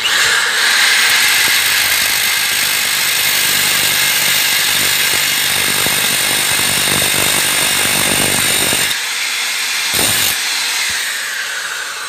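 Corded electric drill fitted with a small worn abrasive cutting disc, switched on and running at full speed with a loud, high-pitched grinding whine as the disc cuts into the workpiece. About nine seconds in the cut stops, there is one brief touch about a second later, and the motor winds down with a falling whine.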